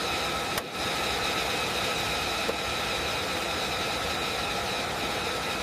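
Jet engine running steadily: a constant roar with a high whine over it, briefly dropping out about half a second in.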